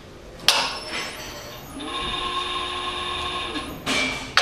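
Controls of a Pilous band saw: a sharp clack about half a second in, then an electric drive motor spins up, runs steadily for about two seconds with a whine and winds down, followed by more sharp clacks near the end. This is typical of the saw head being driven to a new position keyed in on the control panel.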